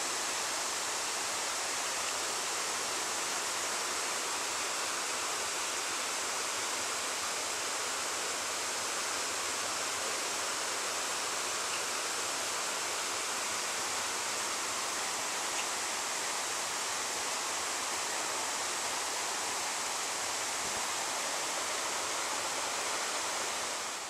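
A stream running below, a steady even rush of water that does not change.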